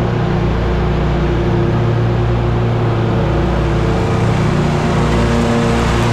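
An engine running at a steady speed, an even low hum that carries on without change.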